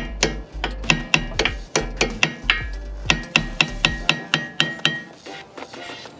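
Small hammer tapping the steel pad retaining pin into a Brembo front brake caliper: a rapid run of sharp metal taps, about four or five a second, each with a short ring. The tapping stops about five seconds in.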